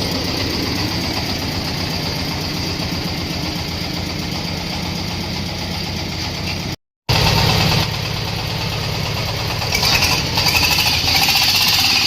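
Engine-driven corn sheller for unhusked corn, powered by a 26 HP engine, running steadily. The sound cuts out briefly about seven seconds in and returns louder. From about ten seconds a rushing, rattling noise grows over the engine.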